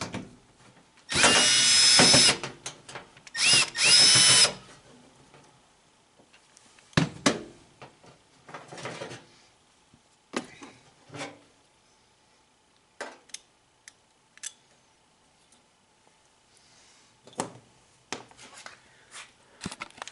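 Cordless drill-driver running in two short bursts of about a second each, spinning up with a rising whine as it backs out sheet-metal screws. After that come scattered light clicks and knocks as the screws and tool are handled.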